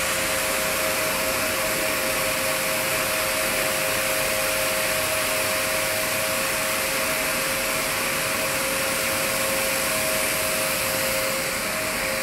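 Automatic rug washing machine running through its wash cycle: a steady, noisy rush with a constant hum of two close tones over it.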